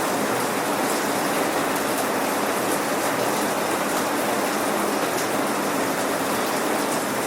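Steady rain falling, a dense even patter of raindrops on surfaces with no thunder.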